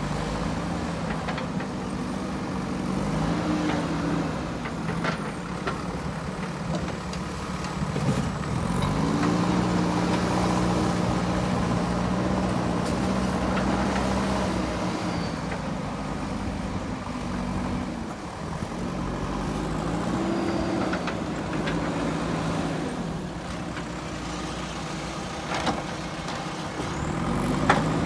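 JCB 3DX backhoe loader's diesel engine working, revving up and settling back several times, with a few sharp knocks.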